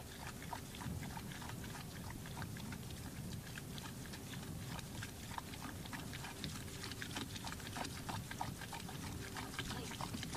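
A mare being milked by hand: many short, irregular squirting and clicking sounds over a low, steady rumble.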